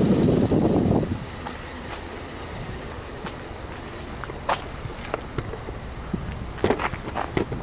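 Subaru Legacy 2.5i's EJ25 flat-four engine running at idle, with a brief louder surge in the first second. Several sharp clicks sound over the idle in the second half.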